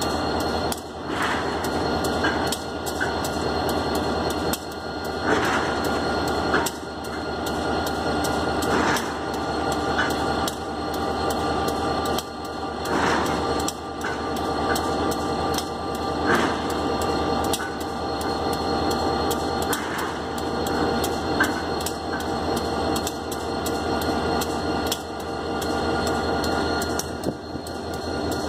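Diesel locomotive idling steadily while the turntable carrying it rotates, with irregular clanks and knocks every second or two from the moving turntable.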